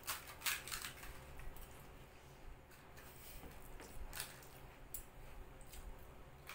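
Faint, scattered crackles and clicks of crisp puri shells being cracked open with the fingers and stuffed with mashed potato filling.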